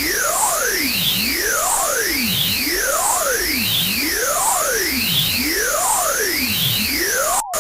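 Loud synthesized sci-fi 'alien' noise: several electronic tones sweeping up and down in pitch over a harsh hiss, crossing each other in a repeating pattern about every second and a half. It cuts out for a split second near the end.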